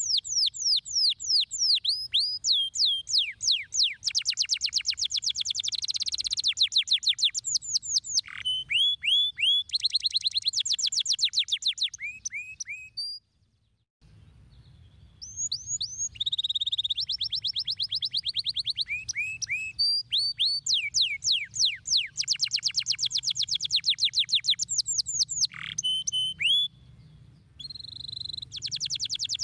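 Domestic canary singing: long runs of fast, rapidly repeated chirps and rolling trills, with a short break about halfway through.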